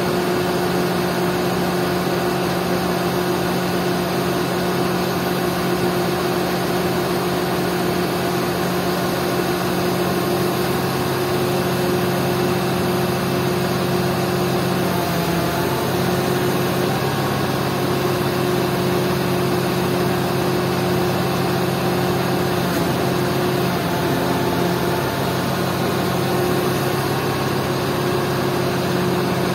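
Mobile crane's diesel engine running steadily, with a slight wavering in its note around the middle as the crane is worked.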